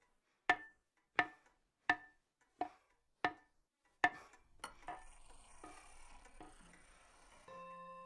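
Hammer striking a wooden beam in a steady rhythm: six sharp blows about 0.7 s apart, each with a short ring, then a few lighter knocks. A held musical note comes in near the end.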